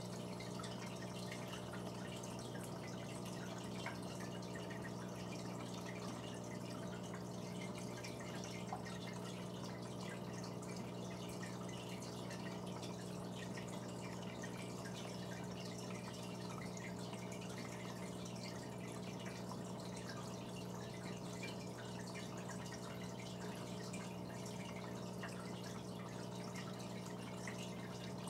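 Aquarium pump humming steadily, with faint dripping and trickling water over it.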